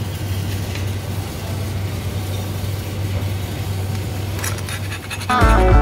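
Steady low hum over background noise; guitar rock music comes in near the end.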